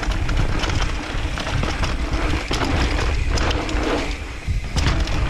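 Mountain bike descending a dry dirt trail at speed: wind buffeting the microphone in a constant low rumble, tyres rolling over the dirt, and frequent sharp rattles and knocks from the bike over bumps and roots, easing briefly near the end.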